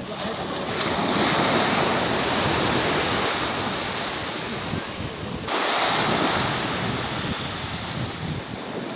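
Sea waves breaking and washing ashore in two surges about five seconds apart, with wind buffeting the microphone.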